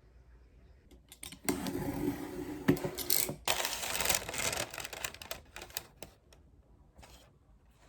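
Clattering and rustling of small hard objects being handled, dense for about four seconds starting a second in, then a few light clicks.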